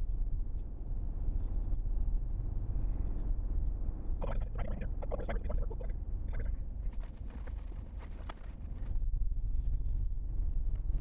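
Steady low rumble of road and engine noise inside a moving Chevrolet Tahoe's cabin. About four seconds in there is a brief garbled voice-like sound, and a few seconds later a quick run of clicks.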